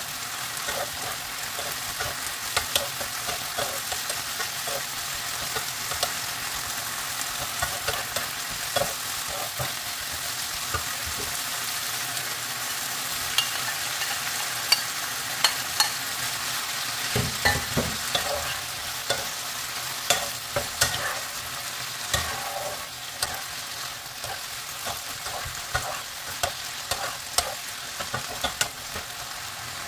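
Chicken pieces sizzling in a frying pan, with a steady hiss of frying under frequent taps and scrapes of a spatula stirring them against the pan, the taps busiest in the second half.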